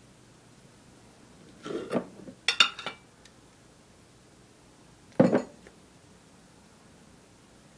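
Kitchenware being handled, clinking and knocking: a quick cluster of clinks and knocks about two seconds in, then one sharp knock about five seconds in.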